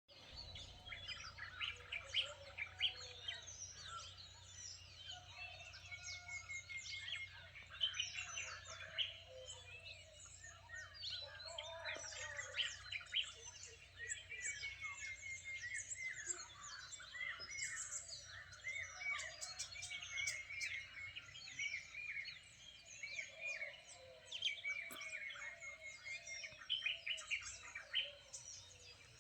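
Many birds chirping and calling at once, with dense overlapping short chirps and trills and some lower calls underneath.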